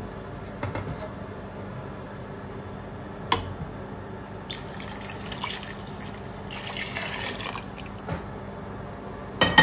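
Chicken broth being poured into a soup pot, the liquid splashing in two short spells, with sharp clinks of a utensil against the pot, the loudest near the end.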